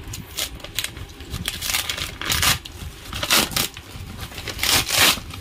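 Plastic courier mailer with packing tape being torn open by hand: a series of short tearing and crinkling bursts, the loudest near the end.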